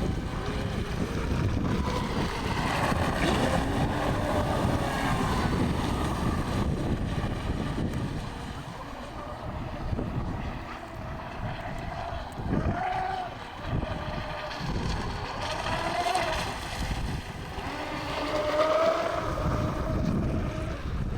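Wind buffeting the microphone, over the whine of a radio-controlled toy boat's motor that rises and falls in pitch as the boat speeds up and slows.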